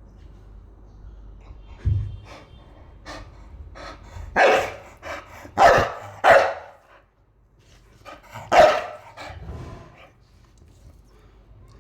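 Dog barking: a handful of loud, short barks at irregular intervals, with softer barks and sounds between them.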